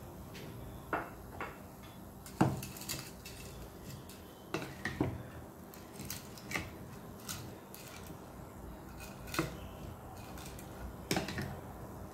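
Cooking utensil clinking and knocking against a pot, a dozen or so short, irregular knocks, the loudest about two and a half seconds in.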